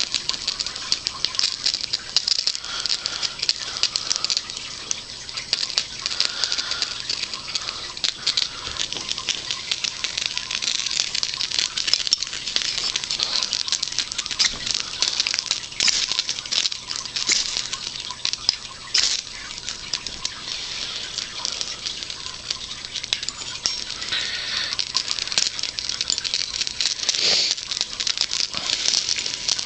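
A ferro rod scraping and picking at a fibrous fire-starter patty to fluff up its fibres: a steady, dense, fine scratching that goes on without a break.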